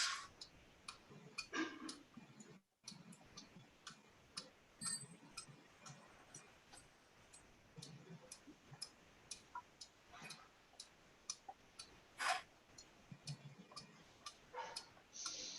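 Faint, regular ticking, about two ticks a second, with a few louder brief rustling or knocking sounds, the loudest about twelve seconds in.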